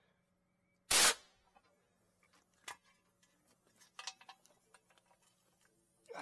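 An air blaster (bead seater) tank dumping its air into a small tire to seat the bead and inflate it: one sudden loud blast about a second in, dying away within half a second. Afterwards come light clicks and knocks of the valve and nozzle being handled.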